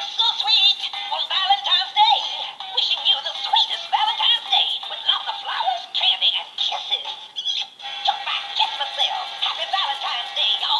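Gemmy animated Valentine poop-emoji plush playing its song through its built-in speaker: a high, synthetic-sounding sung melody with backing music, thin and tinny with no bass.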